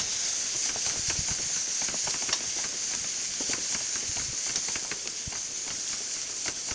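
Chopped onions, dried red chilies and curry leaves sizzling in hot oil in a kadai while a wooden spatula stirs and scrapes them; a steady sizzle with frequent small crackles and pops.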